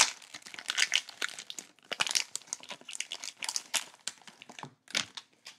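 Cellophane wrapper of a baseball card cello pack crinkling and tearing as it is handled and opened, a dense run of irregular crackles that thins out near the end.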